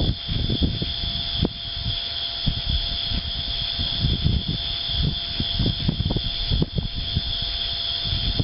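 Wind buffeting the microphone in irregular low gusts, over a steady high-pitched drone.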